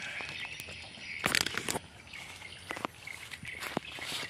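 Birds chirping in the background, with a few sharp knocks and rustles of the camera being handled, the loudest a short cluster about a second and a half in.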